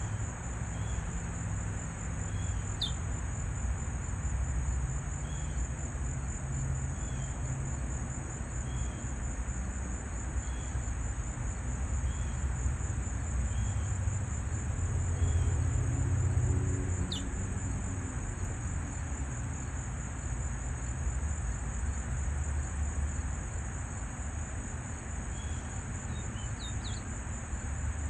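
A steady, high-pitched insect trill, like crickets, with a few short, sharp bird chirps now and then and a faint short bird note repeating every second or so. A low rumble runs underneath.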